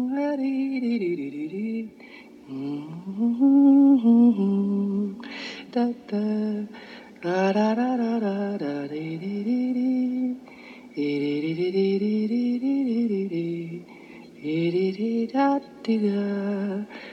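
A single voice singing a slow melody in phrases a few seconds long, its pitch sliding up and down between held notes, with short breaks between phrases.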